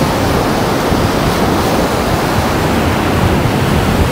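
Ocean surf breaking and washing up a sandy beach, a steady rushing wash.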